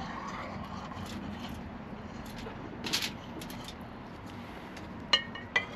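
A rib bath of melted butter, sugar and orange juice being poured from a pot over ribs on foil, a faint steady pour, with two sharp metallic clinks of the pot near the end.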